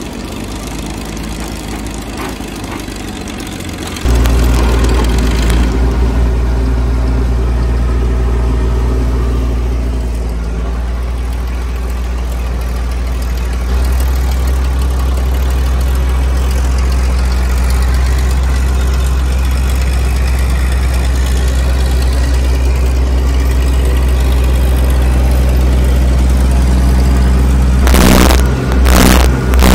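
Diesel crawler bulldozer engines running under load while pushing dirt, starting with a Caterpillar D8. The engine sound jumps louder about four seconds in and changes again around the middle. Near the end there are a few sharp thuds.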